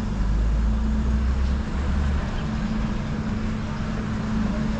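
City street ambience: a steady low hum of traffic, with a deeper rumble that drops away about two seconds in.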